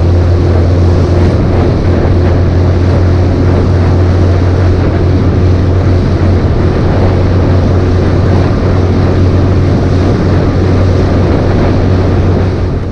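Bass boat under way with its outboard motor running at speed: a loud, steady low engine drone under a constant rush of wind and water noise.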